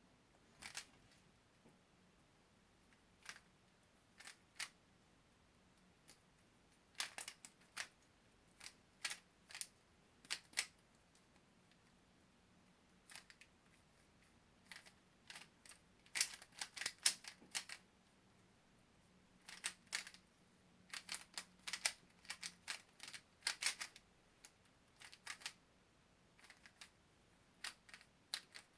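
Speed cube's layers being turned during a solve: quick runs of plastic clicks, broken by pauses of a second or so.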